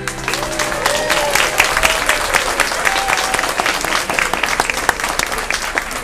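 An audience applauding, with a few cheering voices in the first half, as the last held chord of the song's music dies away about a second in.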